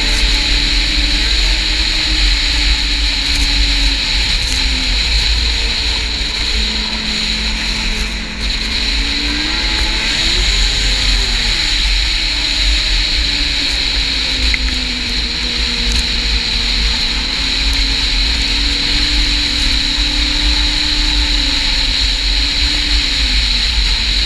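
Snowmobile engine running at trail speed, its pitch drifting up and down with the throttle and climbing then falling about ten seconds in, over a heavy wind rumble on the microphone.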